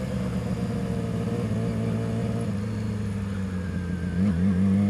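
Yamaha R6 motorcycle engine running at low revs, the pitch sagging slowly and then wavering about four seconds in before starting to climb near the end.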